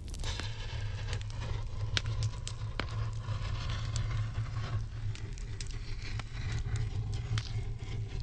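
Eucalyptus branches burning in a fireplace: a steady low roar of flame with scattered sharp crackles and pops.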